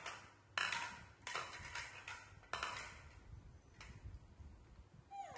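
Plastic plates clacking onto a tiled floor, about six or seven separate knocks as they are laid out one at a time over the first four seconds. Near the end a young macaque gives a short falling squeak.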